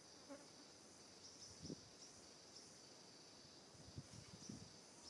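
Faint, steady high-pitched trilling of insects, with a few soft low thumps.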